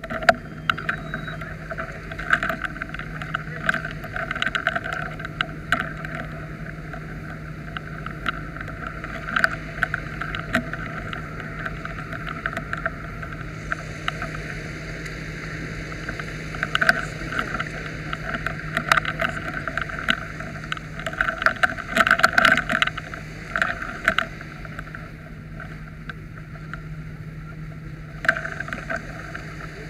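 A fire engine runs steadily, giving a constant low hum. Over it come irregular rustling and knocks from the wearer's gear brushing against the body-worn camera, busiest a little past the middle.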